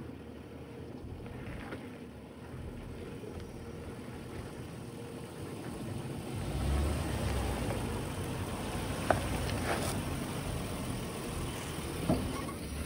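2010 Land Rover LR4 driving off-road: a steady low engine and tyre rumble that swells about six seconds in, with a sharp knock about nine seconds in and another near the end.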